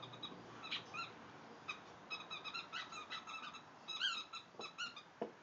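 A squeaky dog toy squeezed over and over in a boxer's jaws, giving a rapid run of short, high squeaks, several a second, loudest about four seconds in.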